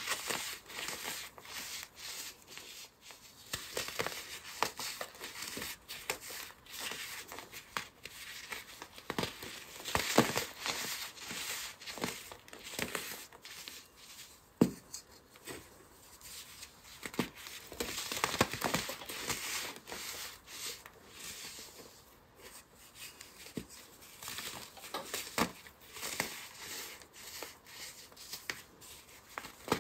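Layered baking soda blocks crushed and crumbled between the fingers: soft, powdery crunching in irregular bursts.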